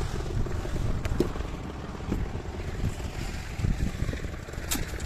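The engine of the site's concrete-casting machinery runs steadily, its sound mostly low-pitched, with a few short knocks of tools and concrete work over it.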